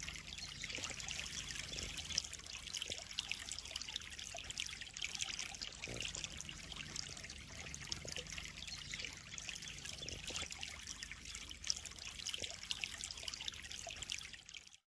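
Koi pond water trickling and splashing steadily, a continuous fine patter that fades out at the very end.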